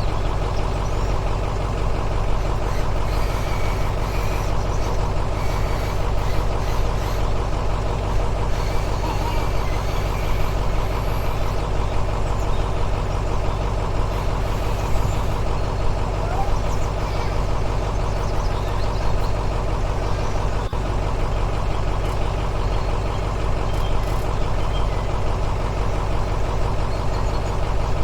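Steady engine sound at an unchanging pitch, like a heavy diesel idling, running without change throughout.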